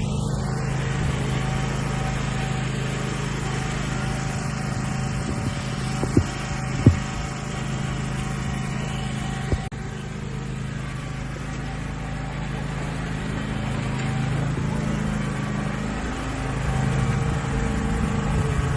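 Riding lawn mower engine running steadily at a constant speed, with a few brief knocks in the middle.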